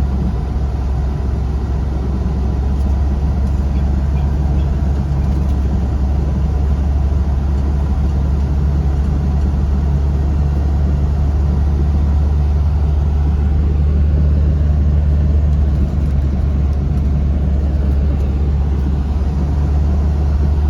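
Tour vehicle driving along, heard from inside the cabin: a steady low engine and road drone that grows slightly louder over the stretch.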